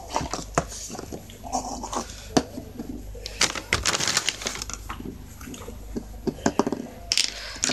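Small plastic bowls being handled and set down on a hard floor: a scatter of light clacks and knocks, busiest about halfway through.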